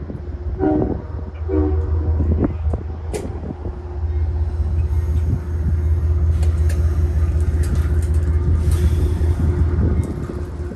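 Amtrak passenger train standing at the platform with the steady low rumble of its diesel locomotive. Two short horn toots come about a second in, the signal that the train is about to proceed. A high hiss joins about four seconds in.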